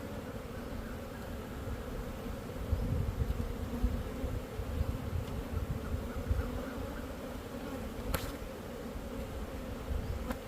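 Honeybees buzzing around an opened hive in a steady, even hum, with uneven low rumbling over it and one sharp click about eight seconds in.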